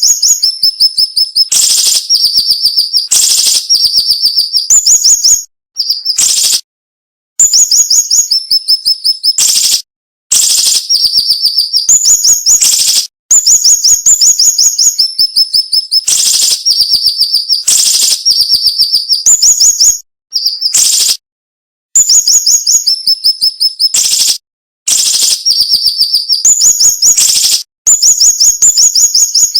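Siri-siri bird singing a sharp, dense song: fast runs of high repeated chirps in phrases of a few seconds, separated by short pauses.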